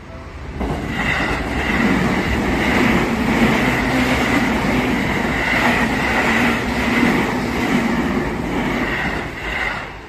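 An electric commuter train passing over a level crossing at close range. The noise of its wheels on the rails rises about a second in, stays loud, and drops off sharply near the end.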